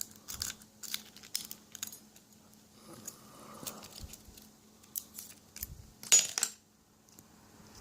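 Lock pick and tension wrench working the pins of a Lockwood lock cylinder: small irregular metallic clicks and scrapes, with one louder metallic rattle about six seconds in.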